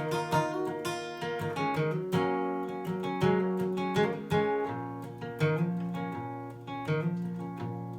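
Acoustic guitar strummed and picked in an instrumental break of a western ballad, with no singing. Each strum rings out and fades before the next.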